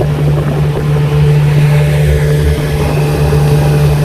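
Johnson 40 hp VRO two-cylinder two-stroke outboard running steadily at part-throttle cruise, under a rush of wind and water.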